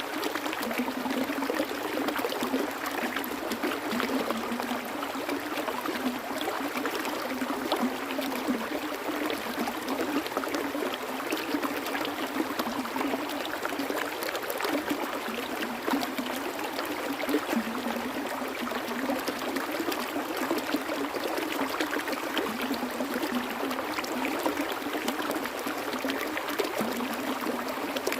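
A stream of running water babbling and splashing steadily, with many small splashes.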